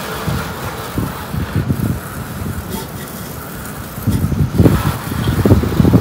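Water spraying from a pressure washer wand onto a pickup truck, a steady hiss under uneven wind rumble on the microphone that grows louder in the last two seconds.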